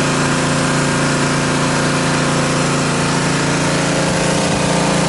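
Pressure washer running steadily, its motor humming, as the wand sprays water against a brick wall.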